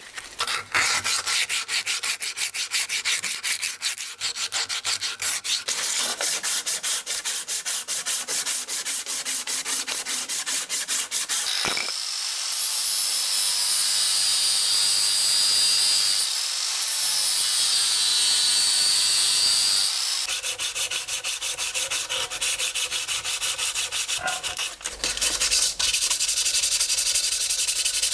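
Rapid back-and-forth hand rubbing on the cast-metal part of an old hand drill. In the middle, for about eight seconds, an angle grinder with a sanding disc runs against the metal with a steady whine, then hand rubbing resumes.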